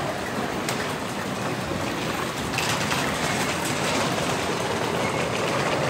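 Osaka Monorail train running, a rubber-tyred straddle-beam monorail: a steady, even noise of the car in motion.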